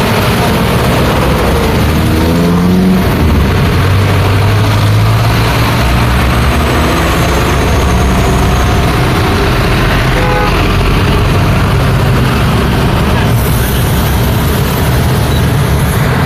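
Busy street traffic: a steady mix of passing vehicle engines and tyre noise. One engine revs up, rising in pitch, about two to three seconds in, and a deep engine drone follows.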